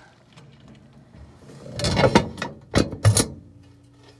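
A padded package and papers rustling and scraping against a metal mailbox compartment, then two sharp metallic bangs in quick succession as the compartment's metal door is shut, the second with a low thud.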